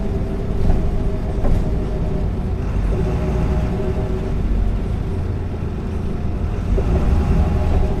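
1993 MAN NL 202 low-floor city bus driving: a steady diesel engine rumble with a faint whine above it. The whine shifts in pitch a little about three seconds in and again near seven seconds.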